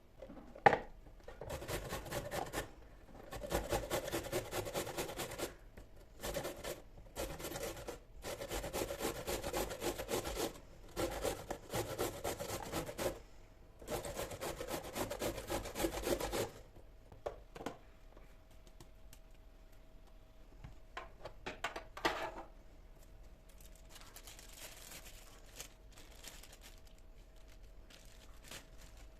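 Repeated scraping and rubbing strokes in kitchen work, in bursts of one to three seconds, with a sharp knock about a second in. The strokes stop about halfway through, leaving a faint steady hum and a few small knocks.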